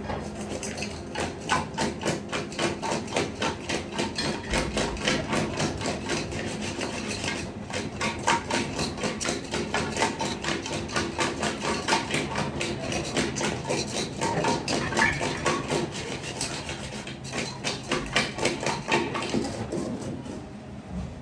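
Rapid, regular knocking of hard strikes, about three a second, pausing briefly twice.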